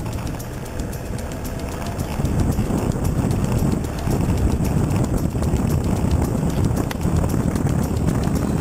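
Toyota Hilux 4x4 driving slowly over a rough, rocky track: a low rumble with constant irregular rattling and knocking of the vehicle jolting over rocks.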